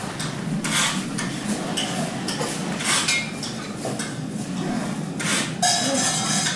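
Children playing homemade percussion made from found garbage and plastic containers: irregular clattering, rattling and knocking, with a brief ringing note near the end.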